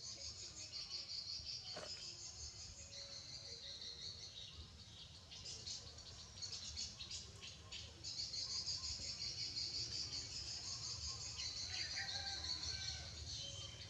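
Steady high-pitched insect chorus, like crickets or cicadas, with a few short chirps near the end.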